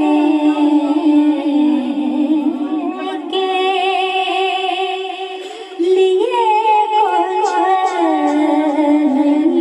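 A woman's voice singing unaccompanied devotional verse, a naat for the Milad, in long held, wavering notes, with a short break for breath a little past halfway.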